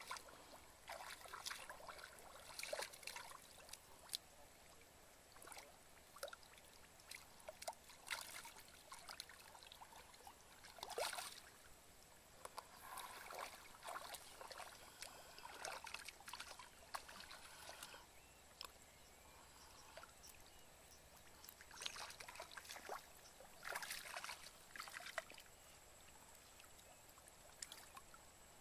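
Shallow muddy water splashing and sloshing in irregular bursts as someone wades through it and gropes by hand for fish. A faint, steady high tone runs underneath.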